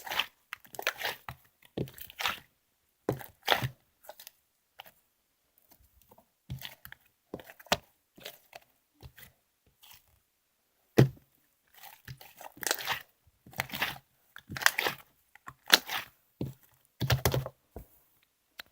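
Crunchy food being bitten and chewed close to the microphone, in irregular crunches with short quiet gaps between them.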